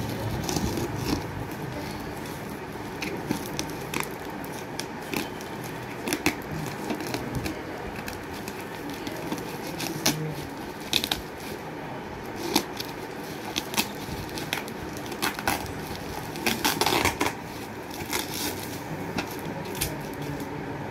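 Plastic parcel wrapping crinkling and crackling as it is handled and cut open with a blade, with scattered sharp clicks and a longer burst of tearing crackle about three-quarters of the way through.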